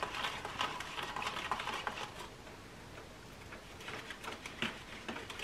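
Metal spoon stirring hot cocoa in paper cups: light, quick clicking and scraping that thins out midway and picks up again near the end.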